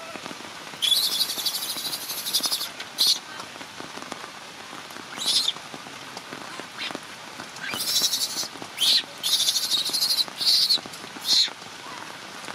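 Steady rain with repeated loud, shrill animal calls over it: one long call of nearly two seconds early on, then a string of shorter ones in the second half.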